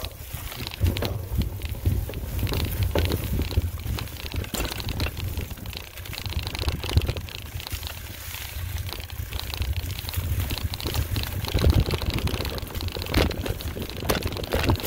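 Mountain bike rattling and clattering over rough ground, with many short knocks from the bike and tyres, over a heavy steady rumble of wind buffeting the camera microphone.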